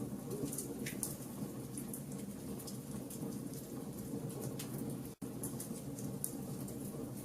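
Wood fire in a fireplace crackling and popping, with scattered sharp crackles over a steady low rumble of burning. The sound cuts out for an instant about five seconds in.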